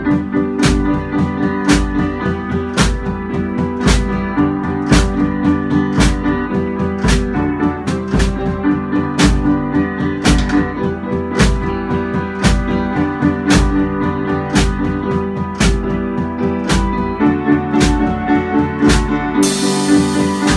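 Upright piano and drum kit playing together: repeated piano chords over a steady drum beat, with a cymbal wash coming in near the end.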